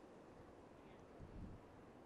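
Near silence: faint background hiss, with one brief low rumble about a second and a half in.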